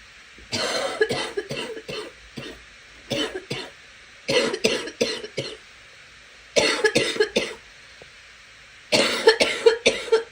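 A girl coughing in five bouts, each a quick run of several coughs, with short pauses between them over a steady faint hiss.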